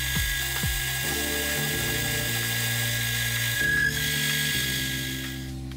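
A metal lathe turning brass with a round-nosed cutting tool makes a steady high hiss and thin whine, which stops just before the end. Background music plays underneath.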